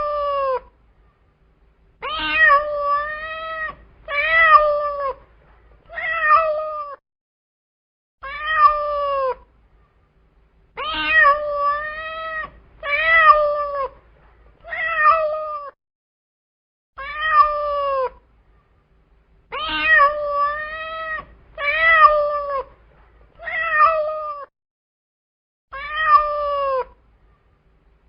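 Domestic cat meowing over and over: drawn-out meows, each rising and then falling in pitch, in runs of two to four with short pauses between.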